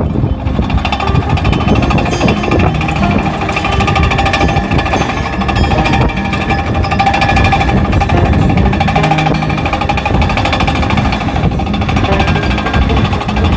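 Heavy earthmoving machine running with a rapid, continuous clatter, under background music.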